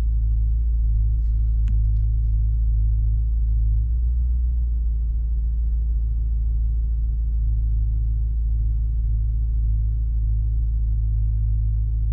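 Turbocharged BMW engine idling steadily after a cold start, still warming up, heard from inside the cabin as an even, low-pitched sound.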